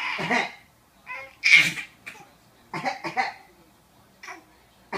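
A person coughing in short separate bursts, about six of them, the loudest about a second and a half in.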